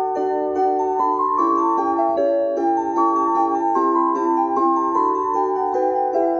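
Casio CPS-201 electronic keyboard played with both hands: a melody over held chords, with notes changing every fraction of a second.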